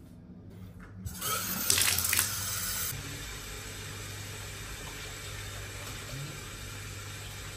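Water running from a tap into a bathtub as it fills. It starts about a second in, splashing louder for about two seconds, then settles into a steady rush.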